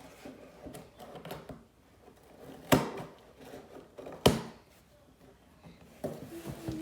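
Cardboard box being handled and opened: soft rustling and scraping, with two sharp knocks about a second and a half apart midway.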